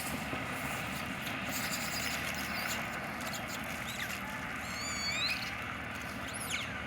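A few short, high-pitched animal calls that bend up and down in pitch, about four seconds in and again near the end, over a steady background hiss.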